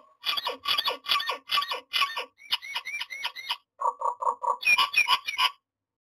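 Common myna calling: a rapid series of short repeated notes, about four a second, with a run of short upward-curving whistled notes in the middle, then lower repeated notes near the end.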